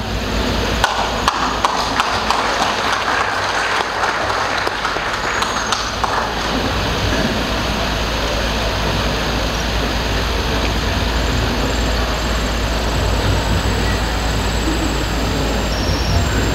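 Audience clapping for roughly the first six seconds, then a steady low rumble and hiss.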